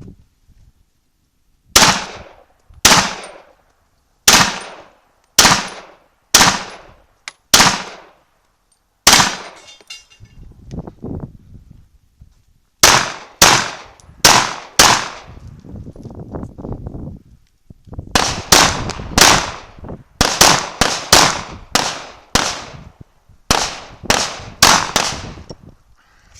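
Glock 17 pistol in 9x21 firing about two dozen shots in quick strings of a few shots each, often paired, with short pauses between strings and quieter low noises in the gaps.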